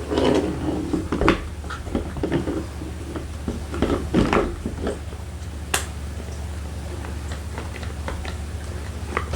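Scattered clicks and knocks of door latch parts being worked and pried loose by hand inside a car door, over a steady low hum. One sharp click stands out a little before the middle.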